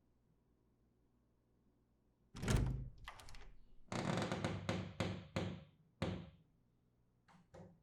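A door being opened and closed: a heavy thud about two and a half seconds in, a run of knocks and thuds from about four to six seconds, then two light clicks near the end.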